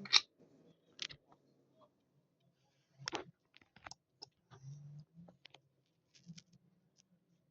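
A toy washing machine being handled: a handful of light, sharp clicks and taps, spread a second or so apart, with a faint low hum now and then in the second half.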